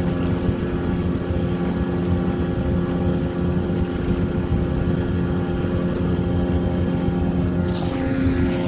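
Mercury 40 outboard motor running steadily under load through a jet-drive unit while the boat is held on a mooring line: a bollard-pull thrust test.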